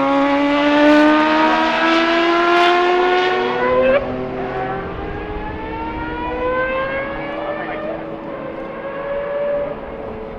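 Mazda 787B's four-rotor R26B rotary engine accelerating hard, its high-pitched note climbing steadily. About four seconds in it drops at a gear change, then climbs again, fainter.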